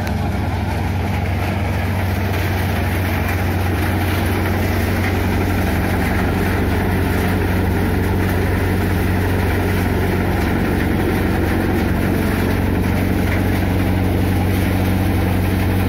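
Groundnut thresher running while vines are fed in: a steady mechanical drone with a strong low hum.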